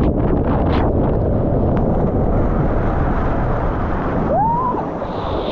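Loud rushing of wind buffeting the microphone mixed with water, as on a ride down a water slide. A short squeal that rises and falls comes about four seconds in.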